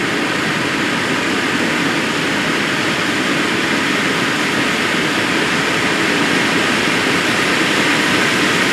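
Several firework fountains spraying sparks together, a loud steady hissing rush that grows slightly louder toward the end.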